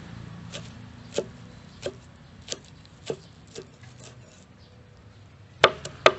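Cleaver chopping fresh herbs on a wooden chopping board: single knocks about every half second or so, then a quick run of harder, louder chops near the end.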